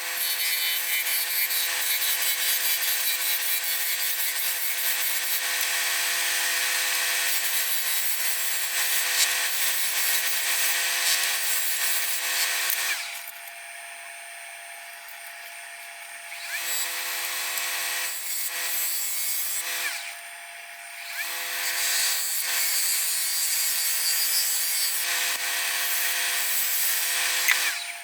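KS Twister FU-180 wood lathe running, its motor humming steadily under the hiss of a turning tool cutting a spinning mahogany blank. Hum and cutting stop twice, once for about three seconds a little past halfway and once briefly a few seconds later, then start again.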